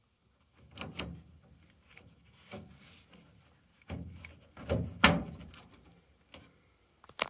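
Hand knocking and scraping against the sheet-metal frame of an air conditioner, a series of thuds and rattles with the loudest knock about five seconds in and a sharp click near the end.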